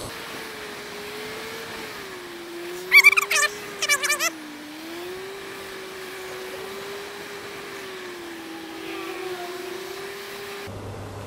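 Motorcycle engine running at low speed while filtering through slow traffic, its note rising and falling gently with the throttle over a steady hiss of air and wet road. Two short, loud warbling high-pitched sounds cut in about three and four seconds in.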